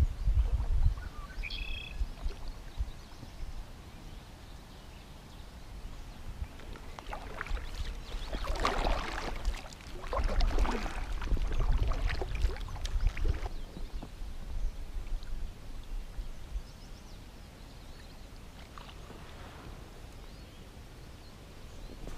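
Kayak paddle strokes dipping and dripping in calm water, loudest in a run of strokes in the middle, with a low rumble of wind on the microphone.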